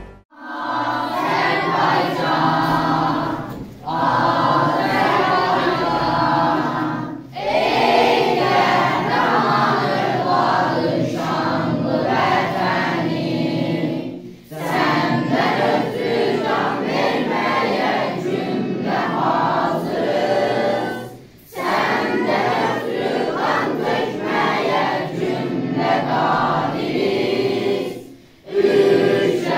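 A group of schoolchildren singing together as a choir, in long phrases separated by short breaths.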